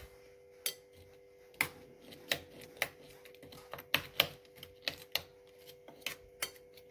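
Metal spoon clicking against a small steel bowl while stirring coriander powder into curd: about a dozen irregular sharp clicks over a faint steady hum.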